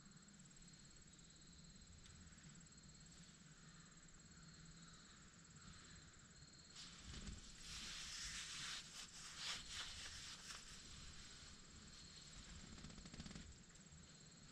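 Near silence with a faint steady hiss, broken by a few seconds of rustling with light clicks starting about seven seconds in.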